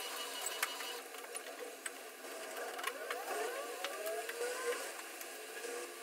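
Cleaning a refrigerator's interior by hand: a cloth rubbing and squeaking on its plastic shelves and door, with light clicks and taps as things are handled. The squeaks cluster in the middle seconds, and a faint steady hum fades about a second in.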